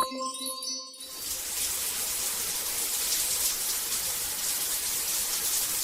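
A shower running: a steady spray of water hissing, starting about a second in. A short ringing tone sounds just before it.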